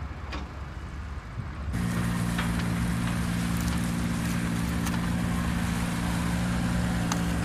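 A motor running steadily, a constant droning hum that begins suddenly about two seconds in, after a quieter stretch of rumbling noise.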